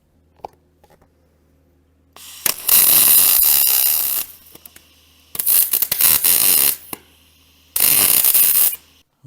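A handheld power grinder run in three bursts, the longest about two seconds, against the rusty thin steel of a lawnmower cutting deck, over a faint steady hum.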